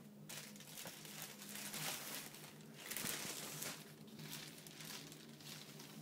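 Irregular rustling and crinkling, loudest about halfway through and fading near the end, over a low steady hum.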